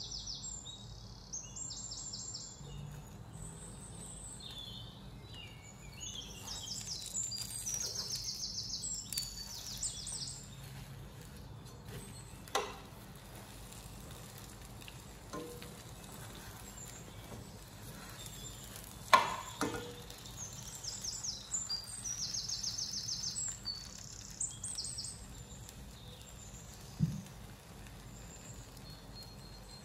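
Birds chirping in short, repeated high trills over a steady low background hum, with two sharp knocks, one about twelve seconds in and a louder one about nineteen seconds in.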